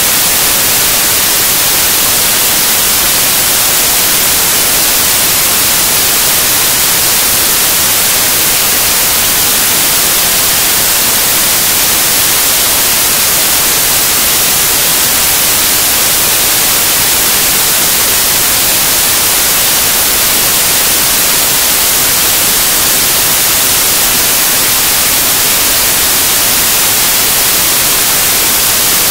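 Loud, steady white noise synthesized in Ableton Live: an even, unbroken hiss that never changes.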